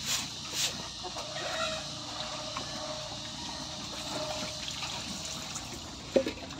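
Water running and splashing steadily, with one short loud knock near the end.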